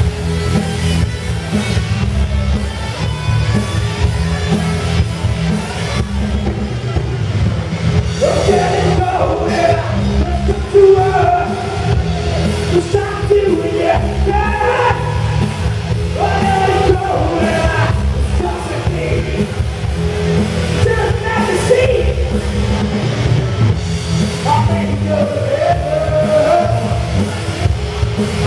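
Live rock band playing with electric guitars, bass and drums; about eight seconds in a vocalist starts singing over the band.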